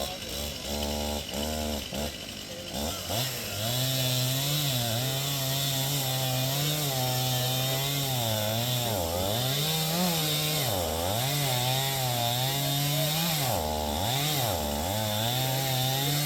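Two-stroke chainsaw cutting up a downed tree: after a couple of short revs it runs at high speed in the cut, its pitch dipping briefly several times as the chain bogs or the throttle eases.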